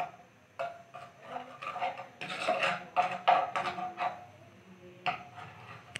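Metal spoon scraping and knocking against a pan as ginger-garlic paste is spread through hot oil. The scrapes are short and irregular, busiest around the middle.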